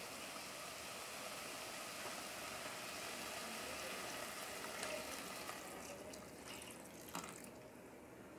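Coconut milk pouring from a carton into an aluminium pot of cooking vegetables: a steady liquid pour that tails off about six seconds in, followed by a single light knock near the end.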